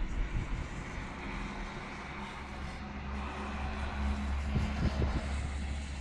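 Gale-force gusty wind rushing and buffeting the microphone in low rumbles, with a steady low hum underneath from about a second in until near the end.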